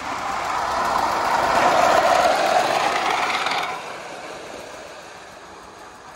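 A 3.5-inch gauge live steam 4-6-0 Ten Wheeler locomotive, with its rider on the car behind, running past close by on the track. It grows louder to a peak about two seconds in, drops off sharply before the four-second mark, and fades as it moves away.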